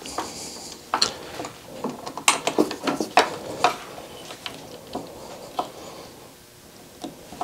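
Kreg router table fence being tightened by hand: irregular light clicks and knocks as its locking knobs are turned and the fence parts shift and seat.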